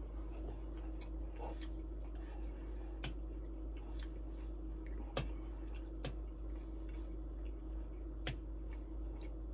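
Cutlery clicking now and then against a plate while a person eats, a few sharp separate clicks over a steady low hum.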